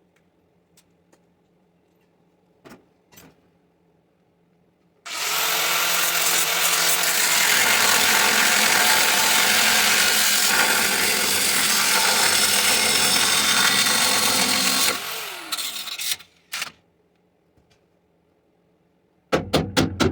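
Handheld power tool running at full speed for about ten seconds, then winding down with a falling pitch, followed by two short bursts of the trigger.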